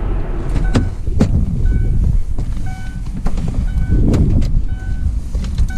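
Van interior while driving: a steady engine and road rumble, with a short high beep repeating about once a second and a few knocks and rattles.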